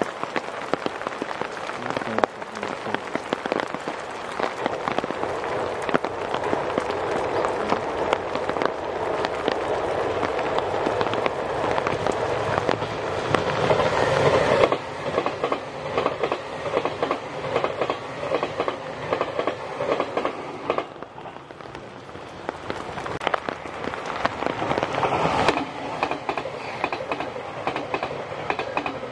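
An electric passenger train passing at speed: wheels rumbling on the rails, building as it approaches, then a rapid clickety-clack of wheels over the rail joints. The sound changes abruptly about fifteen seconds in, dips for a few seconds past the twenty-second mark, and rises again near the end.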